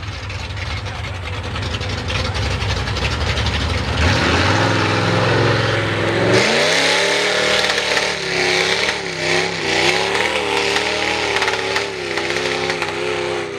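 Ford short-bed mega mud truck's V8 on open headers revving hard as it plows through a mud pit. The engine climbs in pitch about four seconds in, jumps sharply around six seconds in, then keeps rising and falling as the truck churns through the mud.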